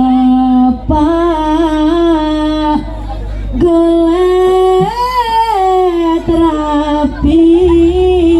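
A solo voice singing the slow vocal line of a jaranan performance: long held notes with pitch slides and ornaments, in several long phrases with short breaths between them.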